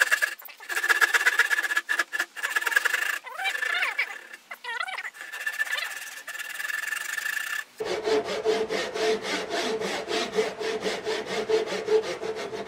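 Hand saw cutting with the grain down the cheek of a wooden tenon, a steady run of rhythmic back-and-forth strokes through the wood.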